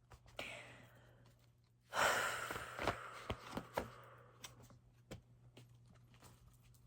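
A person drawing a breath, then letting out a long sigh about two seconds in that fades away, with a few small clicks.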